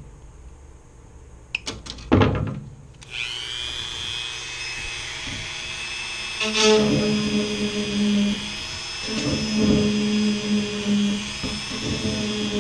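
A few clicks, then a plug-in Dremel rotary tool switches on about three seconds in and spins up to a steady high whine. From about six seconds in a lower hum comes and goes under the whine as the spinning filament tip is pressed into the plastic to melt and stir the seam.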